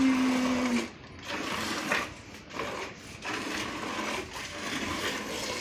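Milk squirting from a cow's teats into a pail during hand milking: a rhythmic hissing of strokes, with short gaps between pulls.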